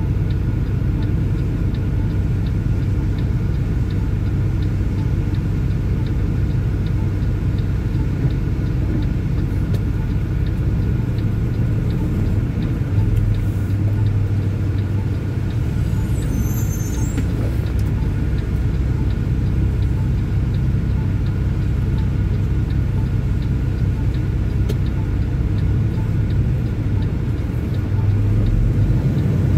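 Semi-truck diesel engine idling, a steady low rumble heard inside the cab, with a faint steady ticking over it. The engine note rises near the end as the truck pulls away.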